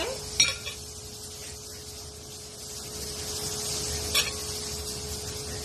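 Aloe vera gel being scooped out into a glass: a low hiss with a faint steady hum, broken by two light clicks against the kitchenware, one just after the start and one about four seconds in.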